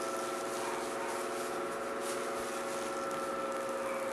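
Faint rattle and scratch of resin diamond-painting drills being shaken in a small plastic tray, which flips them facet-side up, over a steady hum.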